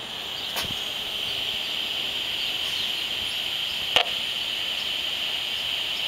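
Handheld RF meter's audio speaker giving a steady high-pitched hiss, broken by two sharp clicks, the louder one about four seconds in: the audible sign of a smart meter's RF transmission pulse.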